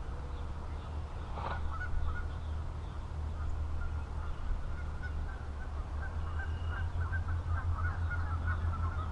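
Faint, scattered honking bird calls over a steady low rumble.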